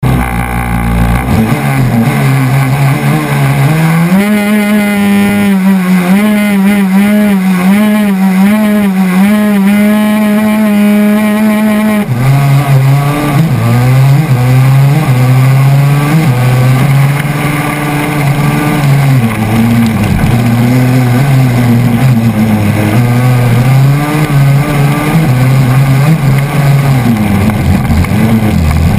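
A crosskart's KTM 250 SX two-stroke single-cylinder engine heard onboard. It runs low, is revved up about four seconds in and held there with small wavers. About twelve seconds in the pitch drops suddenly, then climbs and falls again and again as the kart accelerates through the gears.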